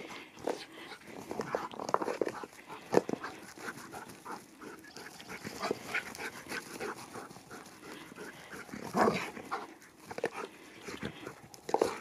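Husky-type dog making short, irregular vocal sounds as it runs about on grass, loudest about a quarter and three-quarters of the way through.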